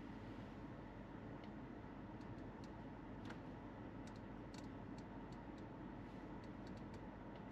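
Faint, irregular clicks and taps of a finger working the BMW X7's curved iDrive touchscreen, some in quick pairs, over a steady low cabin hum.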